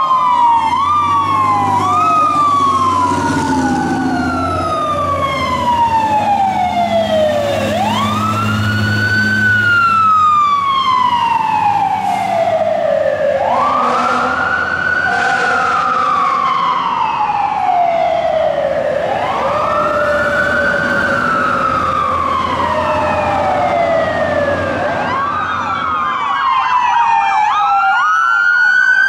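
Fire apparatus siren on a wail, sweeping quickly up, then sliding slowly down again, about every five and a half seconds, over the low rumble of the truck's engine. Several sirens overlap at the start, and near the end another siren begins a fresh rise.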